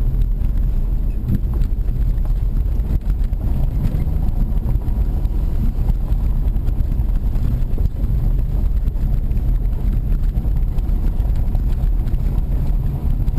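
Vehicle driving on a dirt forest road: a steady low rumble of engine and tyres, with a few light knocks.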